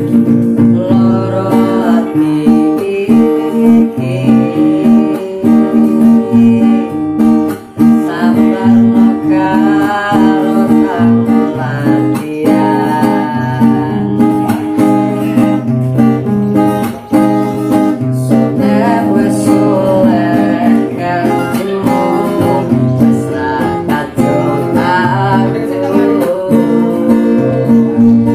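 Acoustic guitar playing an instrumental passage: a picked melody over a low bass line that changes every second or so.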